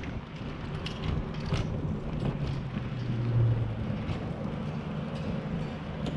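Bicycle riding noise: tyres rolling on pavement with rattles and a few sharp clicks in the first couple of seconds. A low steady hum swells about three seconds in, as the bike rolls into a covered parking garage.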